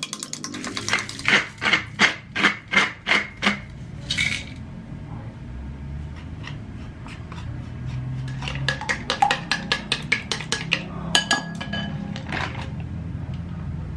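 Kitchen utensils and dishes knocking and clinking: a run of about eight evenly spaced sharp strikes, roughly two or three a second, then after a pause a quicker clatter of clicks.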